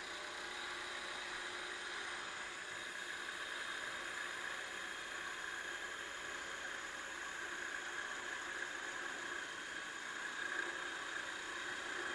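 Wood lathe running while a skew chisel makes a planing cut along the spinning spindle, taking off fine curled shavings: a steady hissing whir.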